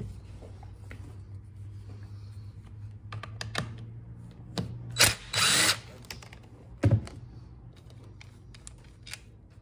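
DeWalt cordless driver with a T27 bit backing out the bolt that holds a Stihl trimmer's clutch housing: a few clicks as the bit seats, then a short burst of the motor running, under a second long, about five seconds in, and a single knock about two seconds later.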